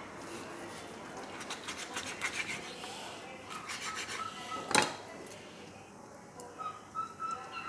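Kitchen knife scraping and tapping against a stone cutting board while slicing a raw salmon fillet, with one sharp knock of the blade about five seconds in.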